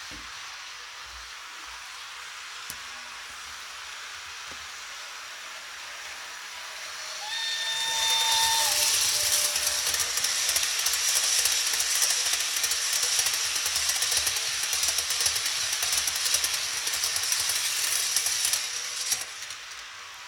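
Sound decoder of a Märklin Re 620 model electric locomotive. About a third of the way in it gives a short horn note, then a loud hiss for about eleven seconds that cuts off near the end.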